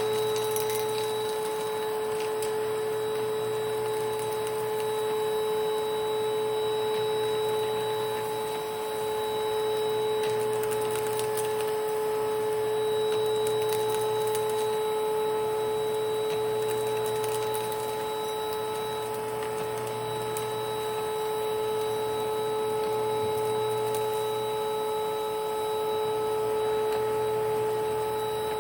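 1992 Panasonic Jet-Flo MC-9530 canister vacuum cleaner running with its power nozzle: a steady, high motor whine, with a lower hum that comes and goes every few seconds. The owner says the motor needs new bearings or new grease.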